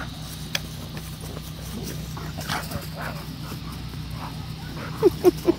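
An Alaskan Malamute and a pit bull play-fighting, growling and snarling at each other, with three short loud barks in quick succession near the end.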